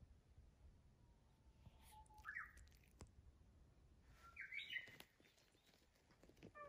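Faint bird chirps: two short calls that step up and down in pitch, about two seconds apart, with a few soft clicks between them.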